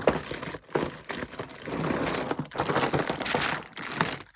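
A continuous, crackly crunching noise, like something being crushed or crumpled, with two short breaks.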